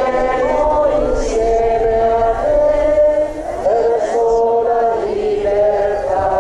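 A crowd of pilgrims singing a slow religious hymn together, men's and women's voices on long held notes.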